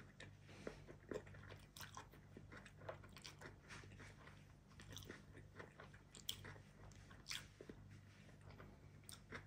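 Faint, close-up sounds of a person eating noodles: chewing and slurping, heard as irregular small clicks, over a low steady hum.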